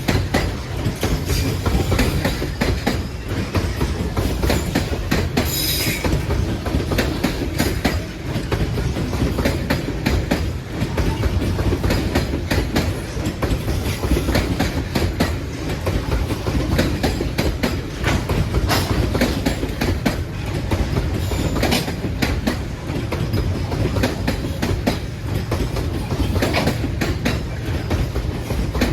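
Freight train wagons rolling past, steel wheels clattering steadily over the rail joints, with a brief high wheel squeal about six seconds in.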